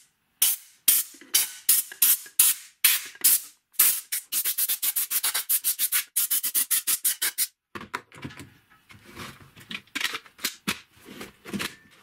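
Compressed-air blow gun fired in short blasts into a cordless vacuum's cyclone and filter section to blow out dust. The blasts come about two a second at first and quicken to about four or five a second, then stop about two-thirds of the way through. After that, plastic parts knock and click as the vacuum is handled and put back together.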